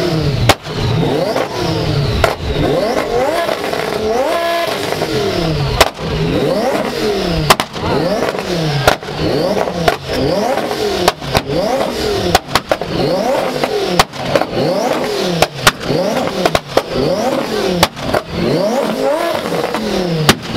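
A performance car engine revved hard over and over, its pitch climbing and dropping about once every second and a half, with sharp exhaust pops and bangs among the revs.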